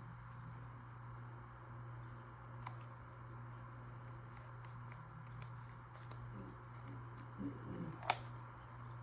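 Faint clicks and small handling sounds from a maze puzzle box being worked, with one sharper click about eight seconds in, over a steady low hum.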